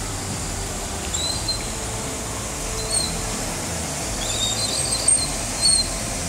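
Steady rush of a swollen, flooding river, with short high bird chirps breaking in several times, including a quick run of them about four seconds in.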